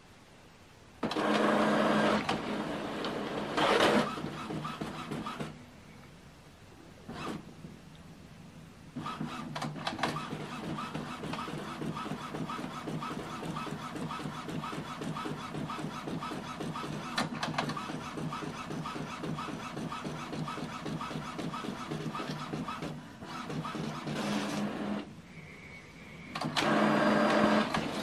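Epson WorkForce Pro WF-M4119 monochrome inkjet printer printing a status sheet. A motor runs loudly for a few seconds, pauses, then the printer works through the page with a long steady, rapid rhythmic whirring, and near the end the motor runs loudly again as the printed page is fed out.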